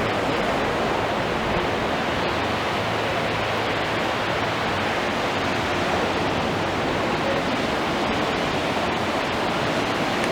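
Steady rushing noise of wind and water on open water, with no distinct events.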